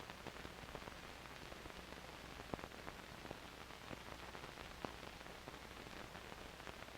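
Faint steady hiss with scattered clicks and pops: the background noise of an old recording, with no sound effects or music.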